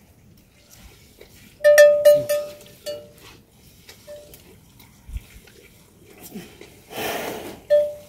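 A small metal bell clanking, a quick run of about five ringing strokes, then once more about four seconds in and again near the end. A short rustling noise comes just before the last stroke.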